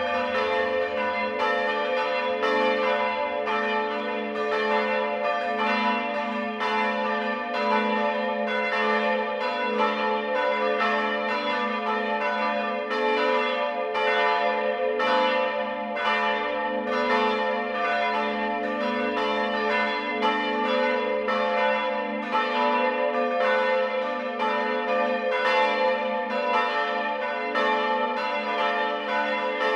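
Several church bells ringing together in a full peal, their strikes overlapping in a steady, continuous stream, each stroke ringing on under the next.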